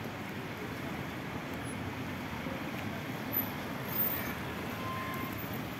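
City street traffic on a wet road: a steady wash of car engines and tyre noise, with two brief clicks a little after three and four seconds in.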